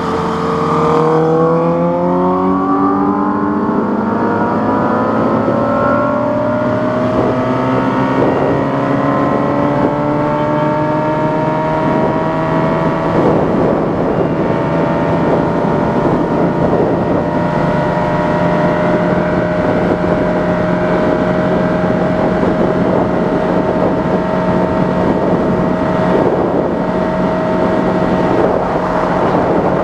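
Sport motorcycle engine heard from the rider's seat, pulling hard as the bike accelerates: its pitch climbs steadily for about the first fourteen seconds, then holds level at a fast cruise.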